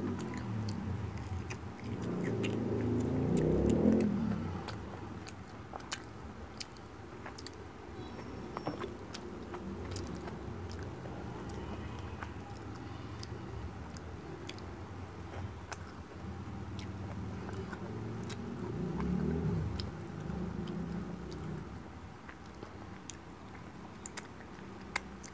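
Close-miked chewing and mouth sounds of someone eating fried bangus (milkfish) and rice by hand, with small wet clicks and smacks. The chewing grows louder about two seconds in and again a few seconds before the end.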